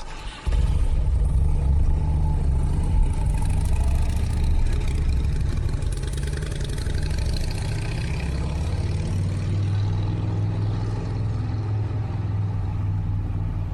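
Motorcycle engine running steadily with a deep rumble.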